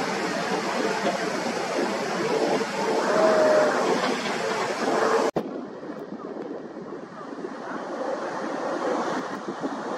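Jet engines of a Boeing 737 on approach overhead, a steady broad rushing noise. About halfway through it breaks off suddenly and a quieter, duller rush from a second Boeing 737 follows.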